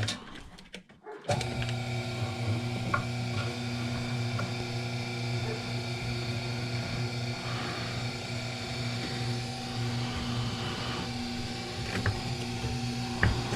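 Electric wire-stripping machine switched on about a second in, its motor running with a steady hum while aluminum cable is fed through to be cut, with a few light clicks.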